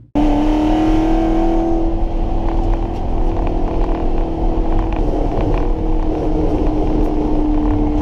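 Ford Coyote 5.0 V8 in a swapped SN95 Mustang running at steady revs, with a level, even engine note and low rumble, plus scattered light clicks.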